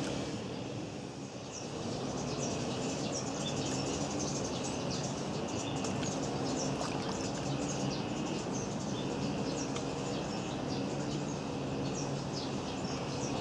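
Small birds chirping in many short, quick calls, over a steady low hum.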